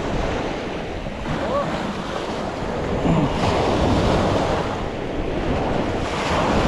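Surf breaking and washing around a small inflatable boat, with wind rumbling on the microphone. The water noise swells about three seconds in and again near the end.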